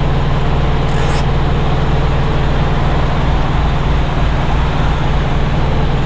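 Truck's diesel engine idling steadily, a constant low hum, with a single short click about a second in.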